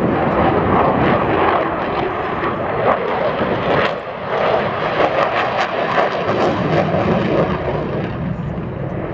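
F-16 fighter jet flying a display pass, its jet engine noise loud and steady, with a crackling edge from about three to seven seconds in.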